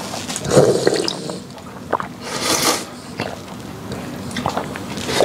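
A person slurping the last of the soup straight from a bowl tipped up to the mouth: a few noisy slurps, the loudest about two and a half seconds in.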